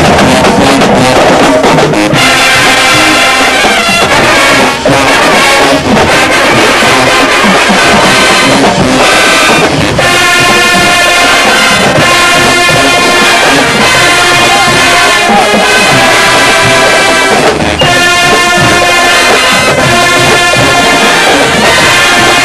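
High school marching band playing loud brass music with drums: trumpets, trombones and sousaphones, holding long sustained chords in the second half.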